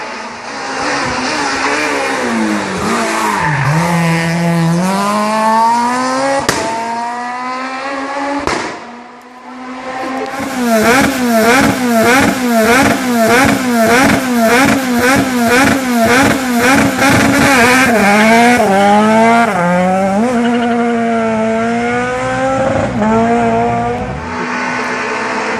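Rally car engine revving through a hairpin, its pitch dropping as it slows and climbing as it accelerates out. After a break, a Renault Clio rally car at the start line revs up and down over and over, about one and a half times a second, then launches and accelerates away.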